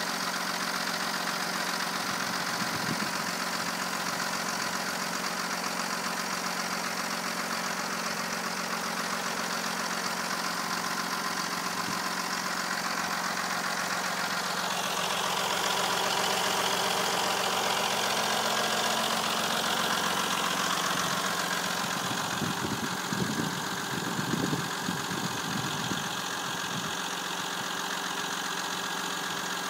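Opel 3.0 CDTI Z30DT V6 diesel engine idling with a metallic clatter. It is running on fresh Mobil 1 0W-40 oil with a new timing belt and tensioner pulleys, and the owner is asking whether the clatter is now within the normal range. The engine gets a little louder for several seconds midway.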